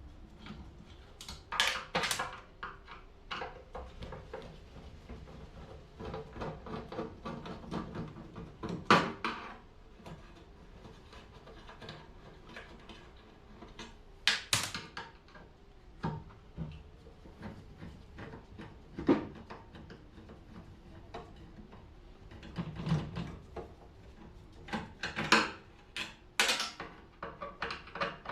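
Microwave oven being taken apart with hand tools: irregular metal clanks, clicks and rattles, with a few sharper knocks.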